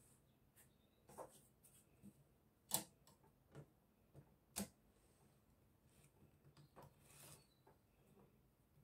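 Faint, scattered taps and clicks of a pattern ruler being shifted and set down on a wooden table, two sharper ones near the middle, with soft scratching of tailor's chalk marking lines on lace fabric.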